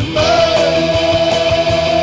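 Rock song with a drum beat and guitars, and one long held note starting just after the beginning.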